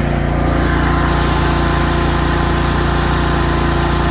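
Kohler 22-horsepower engine of a Cub Cadet Z-Force zero-turn riding mower running steadily just after starting, even and smooth.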